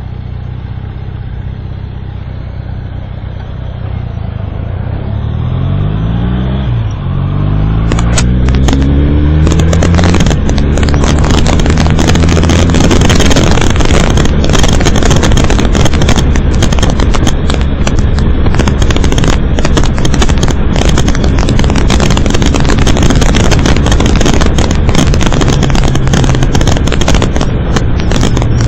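Motorcycle engine idling at a stop, then pulling away with its pitch rising, dropping at a gear change and rising again. It then settles into a steady run at road speed under a loud rush of wind on the microphone.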